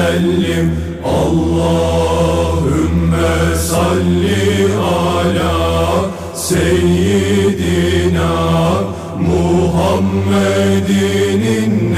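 Background music: a chanted devotional hymn, a singing voice winding over a steady low drone, with brief pauses between phrases.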